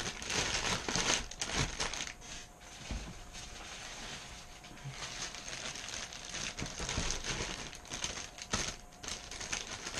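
Plastic bags of model-kit parts runners crinkling and rustling as they are handled and lifted from a cardboard box, with a few light knocks.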